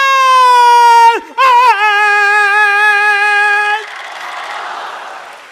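A long, high held note in Peking opera style. It wavers and drops slightly about a second in, then holds again with a light vibrato and breaks off about four seconds in. Audience applause follows and fades.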